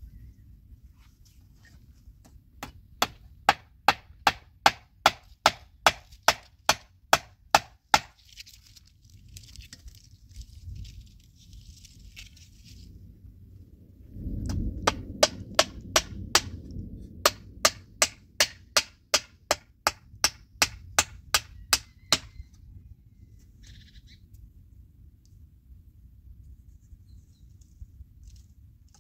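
Claw hammer driving nails into old wooden boards, in two runs of quick, steady blows, about three a second. The first run starts about three seconds in; the second starts about halfway through, and the blows stop about seven seconds before the end.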